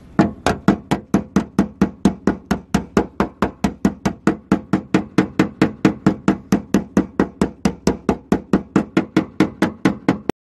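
Hammer blows on a Chevrolet Sonic's sheet-metal quarter panel, working out a dent in an even rhythm of about four strikes a second. The strikes cut off suddenly near the end.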